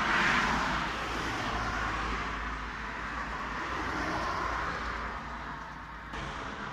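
Street traffic noise: cars passing, swelling loudest just at the start and again about four seconds in, over a steady low rumble.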